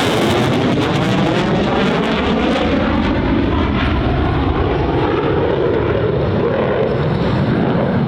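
EA-18G Growler jets flying past, a loud steady jet noise whose tone sweeps and shifts as they go by.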